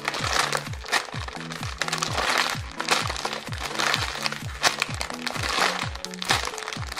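Background music with a steady beat of bass thumps and held bass notes. Over it come crinkling and crackling sounds from handling a soft foam squishy toy.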